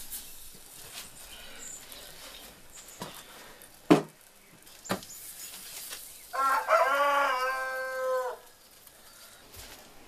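A rooster crows once, a single call of about two seconds that begins some six seconds in. Before it come a sharp knock and, about a second later, a softer one.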